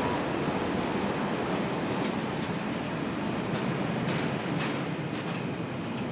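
Boeing 777-300's twin turbofan engines at take-off thrust during climb-out: a steady, broad rumble that slowly fades as the airliner climbs away.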